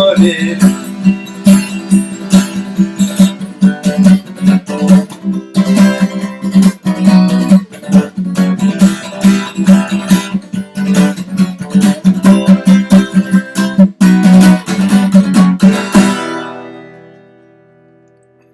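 Acoustic guitar strummed in a fast, driving gallop rhythm ('бой галоп'). The strumming stops about 16 seconds in, and the last chord rings out and fades away.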